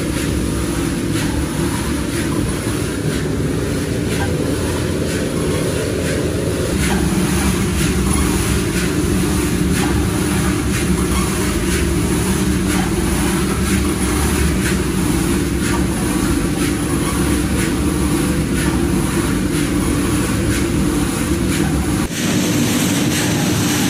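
Rotating drum roaster running with a steady machine drone, chickpeas tumbling and rattling inside the turning drum.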